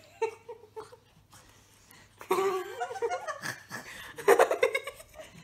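People laughing in short peals, starting about two seconds in and loudest near four seconds.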